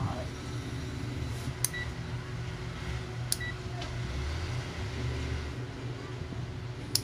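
A RadioShack T-RMS digital multimeter's rotary function switch clicks into a new position, and the meter gives a short high beep right after each click. This happens about a second and a half in, again a little over three seconds in, and at the very end, over a steady low hum.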